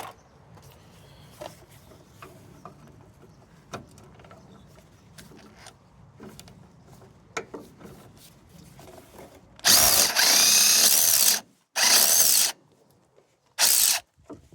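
Cordless power tool running in three short bursts near the end to undo a 10 mm bolt, with small metallic clicks and handling before it.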